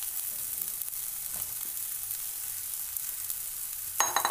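Soya chunks frying with onion and tomato in hot oil in a pan: a steady high sizzling hiss. Near the end, a brief clatter with a short metallic ring.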